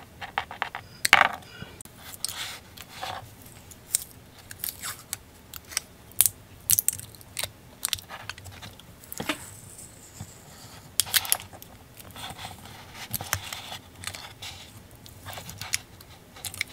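Small cutters snipping at the taped end of a small lithium-ion cell, then the tape wrap being peeled and crinkled off by hand: irregular sharp clicks, snaps and crackles with a few louder snaps.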